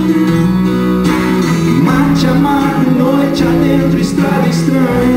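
Live acoustic music: an acoustic guitar being played over sustained low accompanying notes, with a few sharp strums standing out in the second half.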